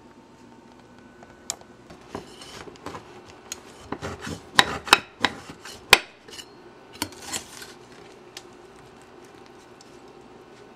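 Knife cutting through the crisp pastry layers of a Napoleon cake and scraping and knocking on the glass plate beneath: a run of sharp crunches and clicks lasting about six seconds, loudest about halfway through, then dying down.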